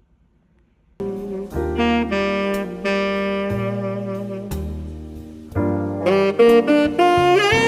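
Background music with saxophone melody over keys and bass, starting after about a second of silence.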